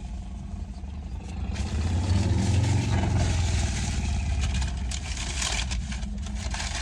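Car engine and road noise, growing louder about a second and a half in as the car picks up speed.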